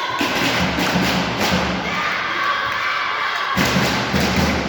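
Crowd cheering and shouting, with dull low thumps in the first half and again near the end.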